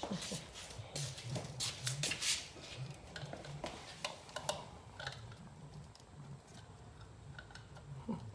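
Scattered light clicks and taps of plastic wheel center caps and a screwdriver being handled, busier in the first half and sparser after.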